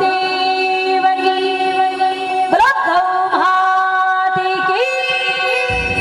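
A woman singing a Rajasthani devotional bhajan into a microphone, holding long notes and sliding up into a new phrase about two and a half seconds in.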